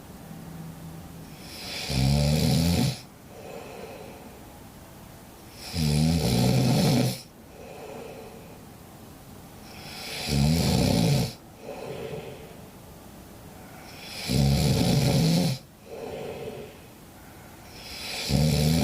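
Sleeping cat snoring in a slow, even rhythm: a loud raspy snore on each breath in, about every four seconds, with a softer breath out between them.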